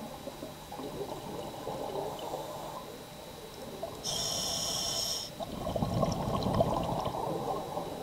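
Scuba diver breathing through a regulator underwater: a hissing inhalation about four seconds in, lasting just over a second, followed by a loud gurgle of exhaled bubbles.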